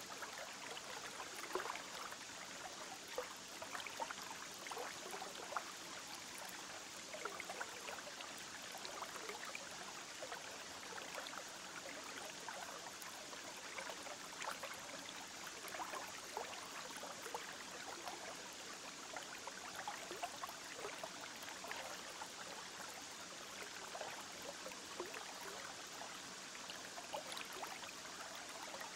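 Aquarium water trickling and bubbling steadily, with many small, irregular plinks.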